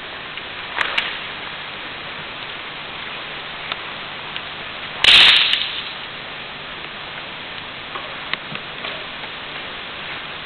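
Sharp cracks from a martial artist's fast strikes and movements during a solo kempo demonstration: two short snaps about a second in and one louder crack about halfway through, over a steady hiss.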